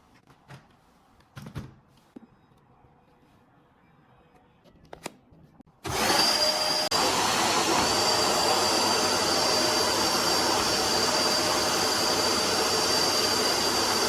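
A few faint clicks in near silence, then about six seconds in a vacuum cleaner motor switches on, spins up and runs steadily with a loud rushing noise and a high whine.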